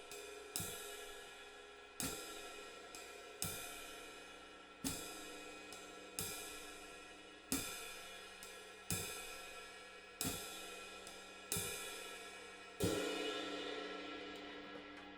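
Ride cymbal without rivets played in a slow jazz swing ride pattern: a stroke about every second and a half with lighter skip notes between, each note dying away without a rivet sizzle. Near the end a louder stroke leaves a longer wash.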